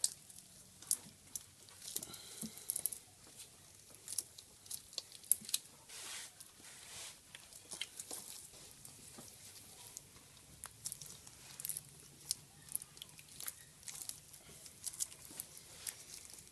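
Disposable-gloved hands handling a fuel pressure gauge, its adapter and rubber fuel hose: irregular small clicks, taps and crinkly rustles.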